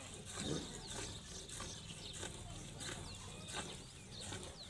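Cow being milked by hand: milk squirting into a bucket in a quick even rhythm, about twice a second. Small birds chirp now and then, and a brief low sound comes about half a second in.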